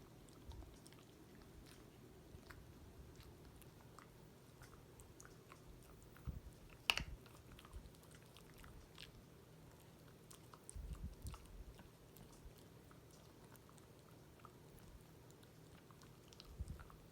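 A dog chewing on a treat: faint, scattered crunches and clicks of teeth, with one sharper click about seven seconds in and a few short low thuds.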